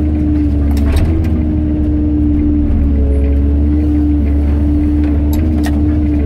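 Excavator's diesel engine and hydraulics running steadily, with a low hum and a steady whine, as the concrete pulverizer attachment works the rubble. A few sharp cracks come through, one about a second in and two near the end.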